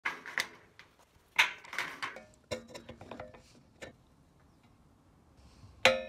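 Hand-squeezed stud crimper clicking and clacking as its jaws and handles are worked on galvanized steel stud and track, a run of sharp metal-on-metal clicks over the first four seconds. Near the end comes one loud metallic clank that rings briefly.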